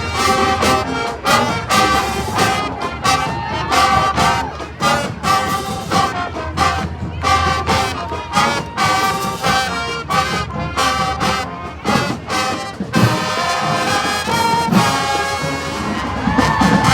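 High school marching band playing: trumpets and trombones carry a tune over drums keeping a steady beat.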